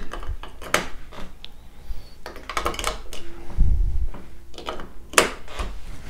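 AA batteries being pressed into the battery compartment of a Nest x Yale smart lock's interior unit: a series of plastic clicks and snaps, the sharpest near the end. About halfway through, a steady tone sounds for over a second as the lock powers up.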